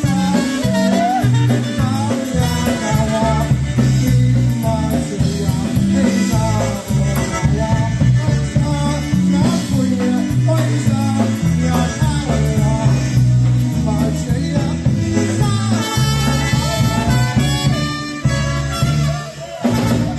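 Live dance band playing a song, with a steady bass line under melody instruments.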